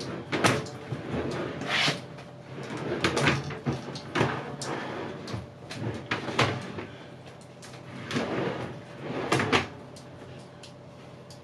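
Melamine drawers sliding in and out on soft-close drawer slides: repeated short sliding rushes with sharp clicks and knocks, quieter near the end.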